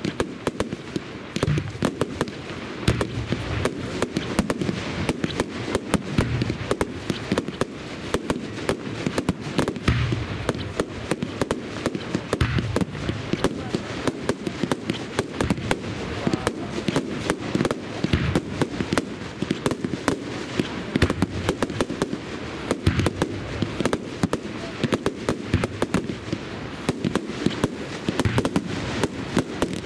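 Fireworks going off in a continuous barrage: rapid bangs and crackling several times a second, with heavier booms of bursting shells every few seconds.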